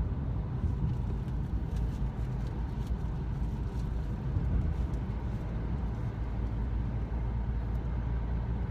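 Steady low rumble of engine and tyre noise heard from inside the cabin of a car driving along a road.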